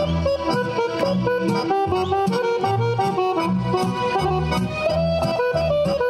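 Lively folk dance music: a quick, busy melody over alternating bass notes and a steady beat.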